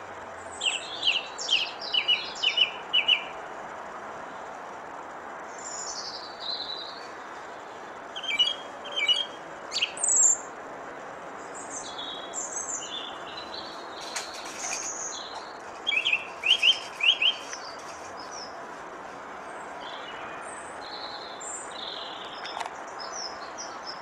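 Thrush singing in short phrases. It gives three bursts of quickly repeated sharp notes, with higher squeaky and warbling notes and short pauses between them, over a faint steady outdoor background.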